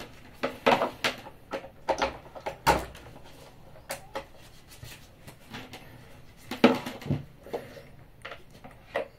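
Scattered clicks and knocks of handling as a power adapter is plugged into a wall socket and its round-pin DC plug is pushed into the back of a security camera.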